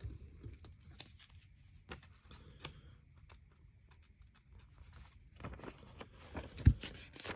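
Small plastic LEGO pieces being handled and pressed together: scattered light clicks and taps, busier toward the end, with one louder knock shortly before the end.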